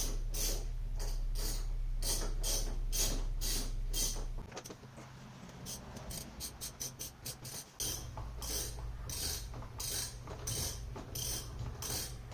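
Hand ratchet wrench clicking in quick strokes as a bolt is turned out, about three clicks a second, with a quieter, sparser stretch in the middle.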